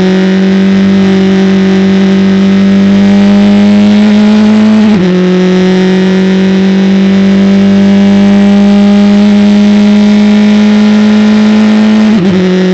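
Open-wheel race car engine at full throttle, heard onboard: a steady high engine note that climbs slowly, dips sharply with an upshift from third to fourth about five seconds in, climbs again, and falls away near the end.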